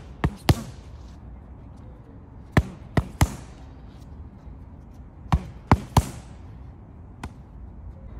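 Boxing gloves striking focus mitts in quick punch combinations. Two sharp smacks at the start, then two bursts of three about two and a half seconds apart, and a lighter single hit near the end.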